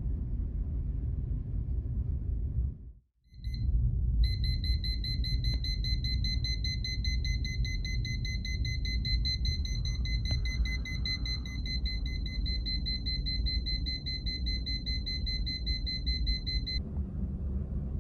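Bedside alarm clock going off: a high, fast-pulsing electronic beep that sounds for about twelve seconds and then stops, over a steady low rumble.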